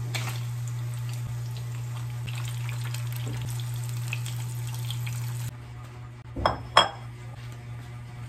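Spam slices and then an egg sizzling and crackling as they fry in oil in a nonstick pan, with a steady low hum underneath. About five and a half seconds in the frying stops suddenly, and two sharp clinks follow close together, a rice paddle knocking against a ceramic bowl.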